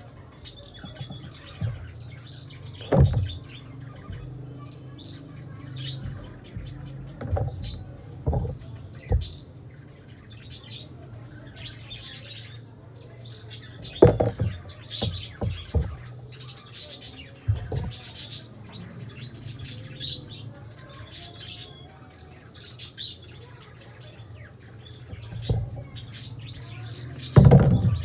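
Small birds chirping: many short, high calls scattered throughout, with a few dull knocks in between and a steady low hum underneath.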